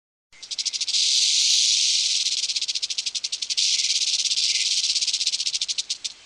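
An animal's dry, rapidly pulsing rattling buzz, high and hissy, starting about a third of a second in and held for nearly six seconds before stopping.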